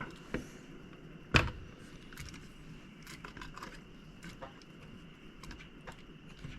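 Small clicks and taps from handling a graphics card and its screws during disassembly, with one louder knock about a second and a half in.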